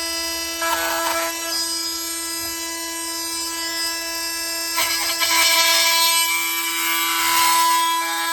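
Milwaukee M18 oscillating multi-tool running with a steady high buzz, its blade biting into a plastic I-Pass transponder case in rasping stretches about a second in and again from about five seconds in.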